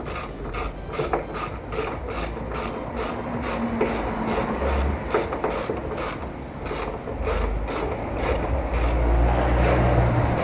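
Ratchet wrench with a 10 mm socket clicking in a quick, even run, about three clicks a second, as bolts on the air filter housing are tightened.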